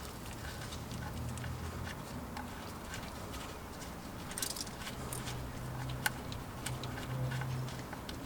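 Quiet hand-work noises: scattered light clicks and taps, a brief rustle about four seconds in and a sharper click about six seconds in, over a low steady hum.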